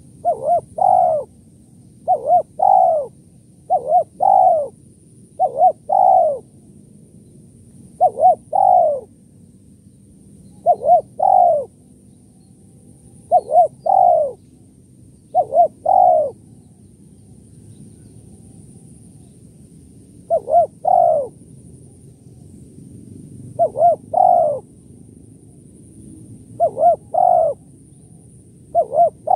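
Spotted dove singing: a repeated two-part coo of falling notes, given about a dozen times with a few seconds between phrases and a longer pause midway.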